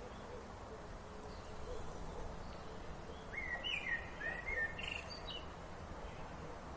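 A bird gives a quick series of short gliding calls about three seconds in, over steady outdoor background noise.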